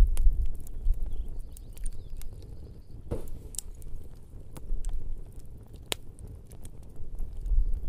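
Wood fire crackling with scattered sharp pops as coals are worked around a cast-iron Dutch oven, with a longer scrape of a shovel in the coals about three seconds in.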